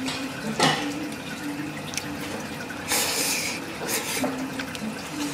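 Ramen noodles being slurped from the bowl: a short slurp under a second in and a longer, louder slurp about three seconds in.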